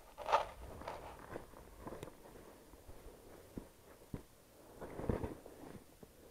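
Irregular scuffs, rustles and knocks of someone moving on foot over a leafy dirt slope while handling the camera. The loudest come just after the start and again about five seconds in.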